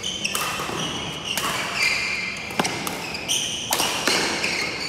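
Badminton rally on a wooden indoor court: sports shoes squeak on the floor again and again in short high-pitched chirps. A few sharp racket strikes on the shuttlecock fall in the second half, in the echo of a large hall.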